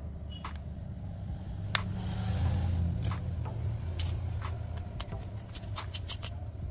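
Scattered sharp clicks of metal tweezers and a soldering-iron tip against a smartphone's circuit board, over a steady low hum that swells about two seconds in and eases after four.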